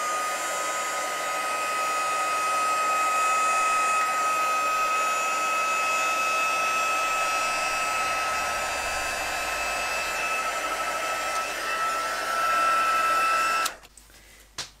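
Handheld embossing heat gun running steadily, its fan blowing hot air with a steady high whine, melting gold embossing powder on card stock. It is switched off about a second before the end, leaving quiet with a couple of light knocks.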